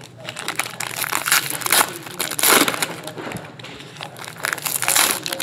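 Foil trading-card pack wrappers crinkling and rustling as they are handled, in several loud bursts.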